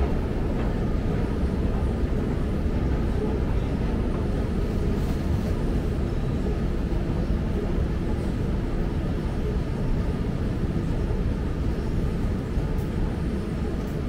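Steady rumble of an Elizabeth line Class 345 train heard from inside the carriage while it runs between stations, with a faint steady hum over it.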